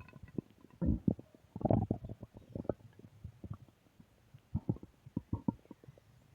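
Human stomach gurgling: irregular bubbly rumbles and short pops, with two fuller gurgles in the first two seconds and a quick run of small pops later on.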